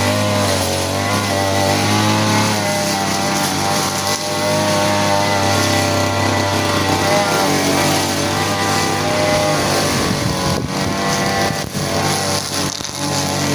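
Small petrol engine of a grass-cutting machine running steadily, its pitch wavering up and down as the load changes while cutting grass.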